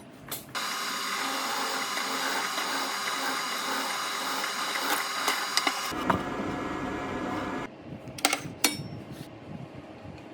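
A power tool's electric motor running with a steady high whine for about seven seconds, its sound deepening about six seconds in, then stopping; a few sharp clicks and knocks follow.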